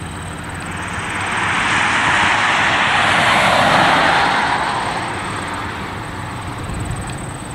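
Beechcraft King Air 350's twin turboprop engines at power as the aircraft passes at speed along the runway. The noise swells to a peak about three to four seconds in, then fades away.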